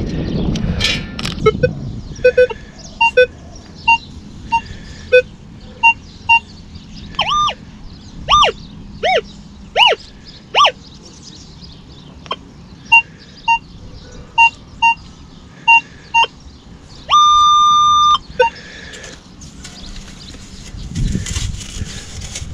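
Metal detector beeping as its coil is swept over sand. There are short beeps at a lower and a higher pitch, a run of warbling tones that rise and fall between about seven and eleven seconds in, and one long steady tone lasting about a second near seventeen seconds in.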